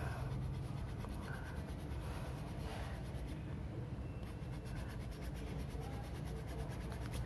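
A small hand file rasping in rapid strokes on a small plastic part, rounding it into a half ball joint for an action figure. There is a short lull a little past the middle.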